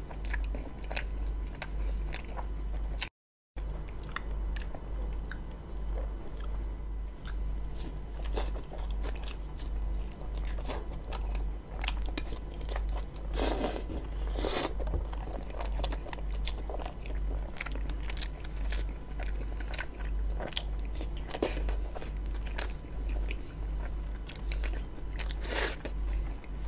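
Close-miked chewing and biting of a roti John, a soft fried bread with a meat and egg filling. It is full of wet mouth clicks and smacks, with a couple of louder bites about halfway through. The sound drops out briefly about three seconds in.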